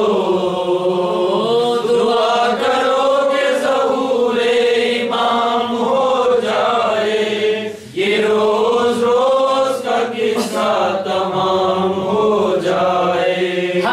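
Unaccompanied male voices chanting an Urdu noha, a Shia mourning lament, in long drawn-out melodic phrases, with a brief breath break about eight seconds in.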